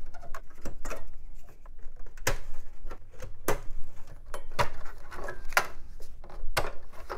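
Drive power connectors and IDE ribbon cables being unplugged inside a steel desktop PC case. The sound is a string of irregular sharp plastic clicks and knocks with cable rustling between them.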